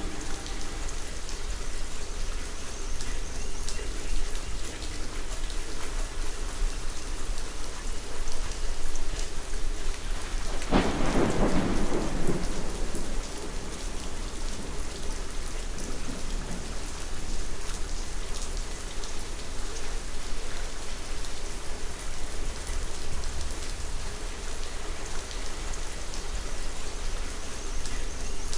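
Steady rain, with a single thunderclap about eleven seconds in that breaks sharply and dies away over a second or two.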